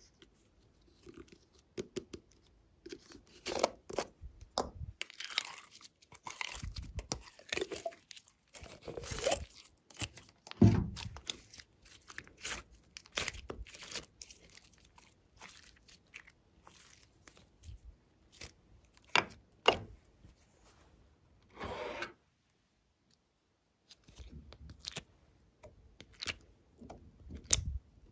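Glossy slime being squeezed, stretched and mixed by hand, giving irregular crackling pops and crunchy, tearing squelches that come in uneven clusters.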